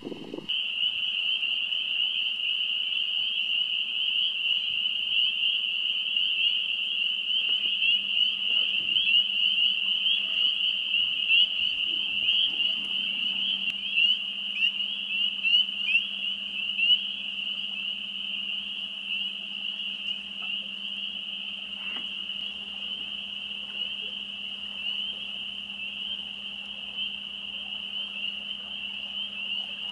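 A dense chorus of spring peepers: many short, rising, high-pitched peeps overlapping in a continuous shrill wall of sound.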